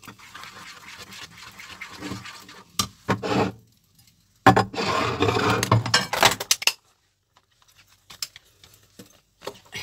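Spoon stirring thick bechamel sauce in a pan, then a few knocks and a louder rushing noise of about two seconds midway; after that, near silence with a few clicks.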